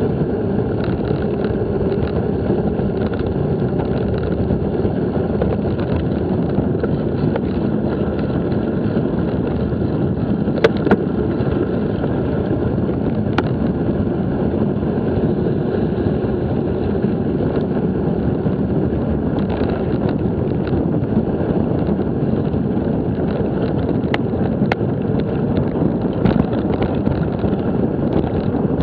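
Steady wind and tyre rumble on a bike-mounted action camera during a ride, with a few sharp knocks from bumps about a third of the way in and again near the end.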